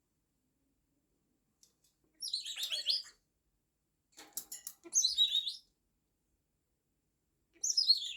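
Pet parrot chirping and warbling in three short high-pitched bursts a couple of seconds apart. A few sharp clicks come just before the second burst.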